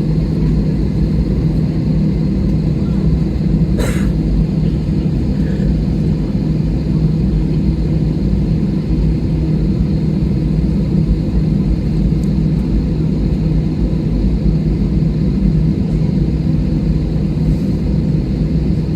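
Steady engine hum and low rumble inside a jet airliner's cabin as it taxis or waits for take-off, with one brief click about four seconds in.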